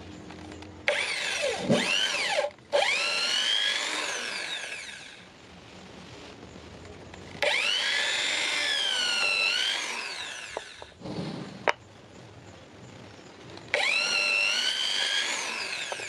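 Hand-held electric drill boring through wooden knife-handle scales with a twist bit, in about four short runs. Each run starts with a sharply rising whine that then sags and wavers while the bit cuts, with short pauses between runs.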